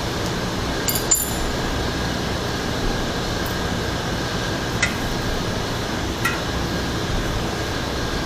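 A few light metallic clinks from work on a bicycle wheel, about a second in and twice more later, over a steady fan-like hum.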